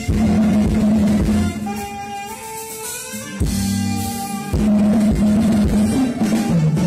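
Live band music played loud through a PA: drum kit, bass and guitar keeping a steady beat under sustained melody notes.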